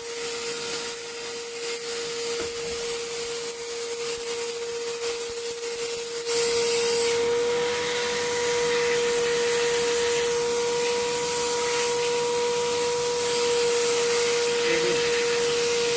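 Vacuum cleaner running, used to clean an air-conditioner, with a steady hum. For about the first six seconds it is louder and uneven, with a high whine over it. The whine then cuts off and the vacuum runs on smoother and a little quieter.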